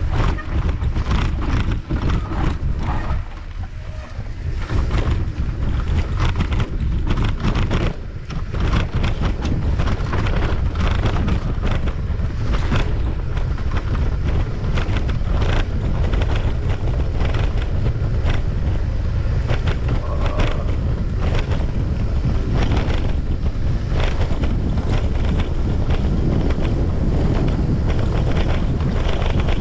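Mountain bike ridden fast over a rough dirt singletrack: wind buffeting the handlebar-mounted microphone as a steady rumble, with frequent knocks and rattles from the bike hitting bumps and roots.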